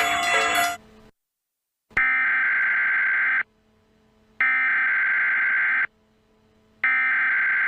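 Emergency Alert System SAME header: three bursts of digital data tones, each about a second and a half long with about a second between them, the third running on past the end. Before them, music cuts off abruptly under a second in, followed by a short silence and a click.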